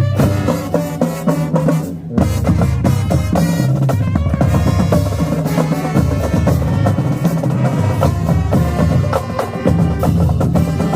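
Marching band playing loudly: a drumline with bass drums beating under sustained wind-instrument chords.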